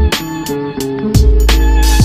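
Background music with a steady beat and a short repeating melody; a deep bass note comes in about a second in, with a brief hissing swell just before the end.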